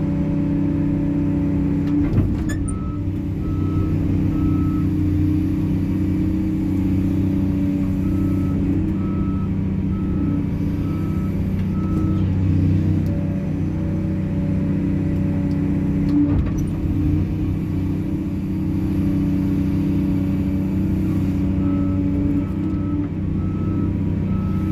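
Excavator diesel engine running steadily, with a travel alarm beeping in three runs of several even beeps, the sign that the machine is tracking. Two short clunks, about two seconds in and near the middle.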